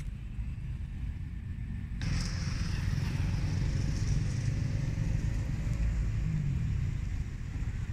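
Wind buffeting the microphone outdoors: an uneven low rumble that grows louder about two seconds in.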